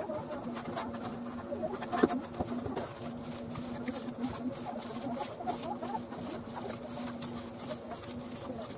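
Hands kneading sticky bread dough in a stainless steel bowl: soft squelching with fingers scraping and tapping the metal, and one sharp knock about two seconds in. A steady low hum runs underneath.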